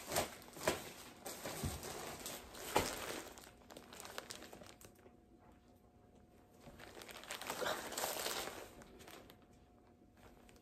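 Plastic mailer bags crinkling and rustling as they are handled and gathered up, with crackly bursts over the first few seconds and another rustle about eight seconds in.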